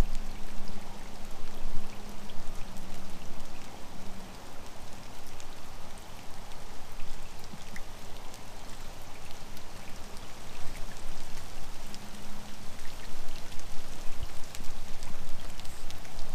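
Steady rain falling, with the ticks of many individual drops over an even hiss.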